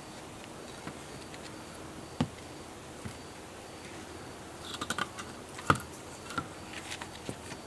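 Dry sticks and brushwood being handled and laid on hard dirt ground: scattered light clicks and snaps, with a sharper knock about two seconds in and another, the loudest, near the end.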